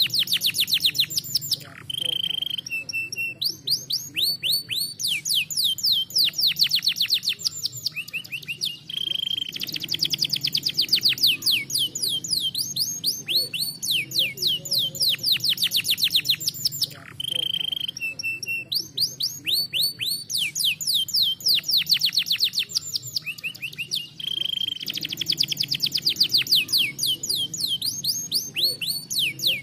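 Domestic canary singing in long, fast trills of rapid downward-sweeping high notes. Every several seconds the trill breaks for a short, steady whistled note, then the rolling trill resumes.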